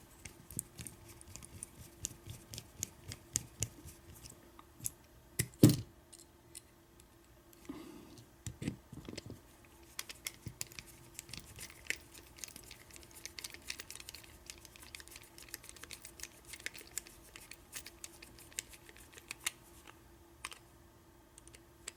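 Irregular small metal clicks and taps of a 1-inch mortise lock cylinder's cam being fitted back on by hand, with one louder knock about six seconds in.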